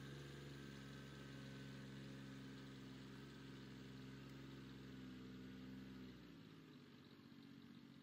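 Faint compact tractor engine running at a steady speed as the tractor moves a finished roof truss. About six seconds in it grows fainter and loses its low end as the tractor moves off.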